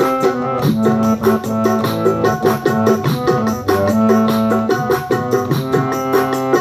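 Harmonium playing an instrumental melody: quick-changing reed notes over longer held lower notes.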